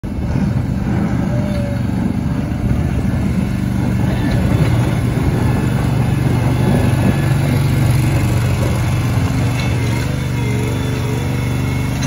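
Engine of a 1976 Ford CL20 skid steer running steadily as the machine pushes snow with its front blade.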